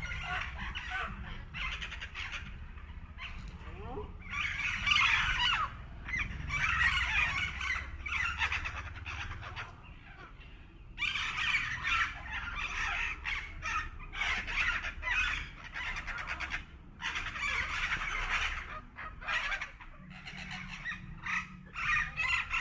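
Domestic fowl calling in repeated noisy bursts of clucks and squawks, with brief lulls in between.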